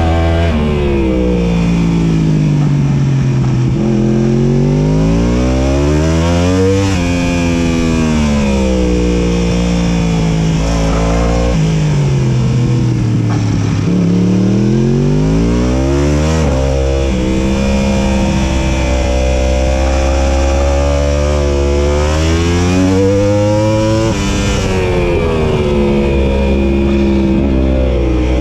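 Onboard sound of a 2018 Yamaha YZF-R1's 998 cc inline-four engine lapping a circuit. The pitch climbs hard under acceleration and falls away on braking, several times over, with a few abrupt steps in pitch at gear changes.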